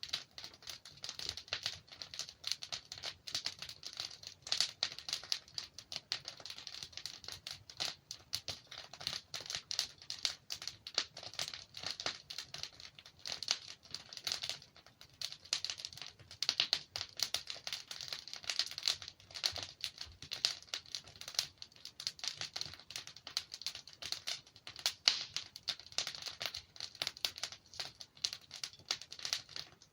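Wood fire with logs burning, giving a dense, continuous crackle of small clicks and louder pops scattered throughout.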